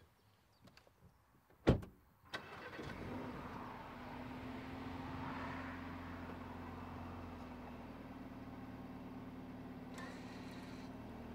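A car door shuts with a single loud thud, then about half a second later the Audi 45 TFSI quattro SUV's four-cylinder turbo petrol engine starts and settles into a steady idle.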